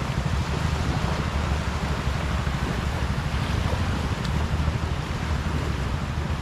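Wind buffeting the microphone as a steady low rumble, over the wash of small waves in shallow sea.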